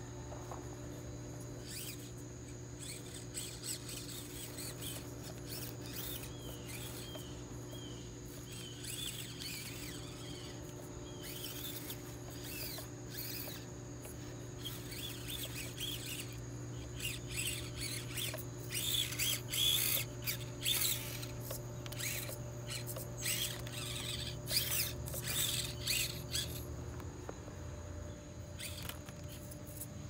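An Axial SCX24 micro RC crawler's small electric motor and gears whining in short high-pitched bursts as it crawls over rocks, busiest and loudest in the second half. A steady low hum lies underneath and stops near the end.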